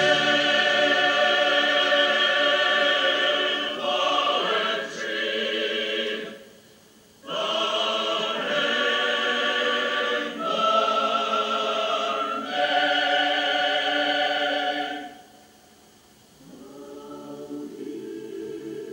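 A choir singing long held chords in phrases of a few seconds each, with two brief pauses. After the second pause it comes back softer and lower.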